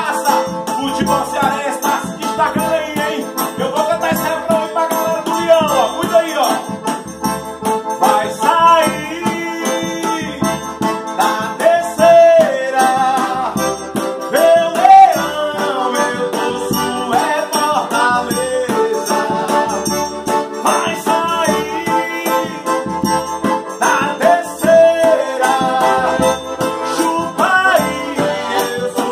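A Noble piano accordion and a hand-held drum struck with a mallet play a lively tune, the drum keeping a steady low beat about once a second, while a man sings along.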